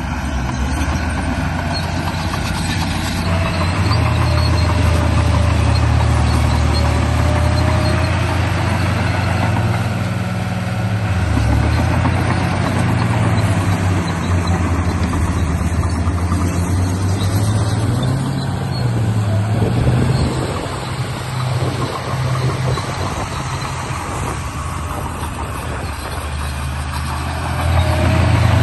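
RC bulldozer running steadily with an engine-like drone whose pitch steps up and down several times, under a constant clattering hiss.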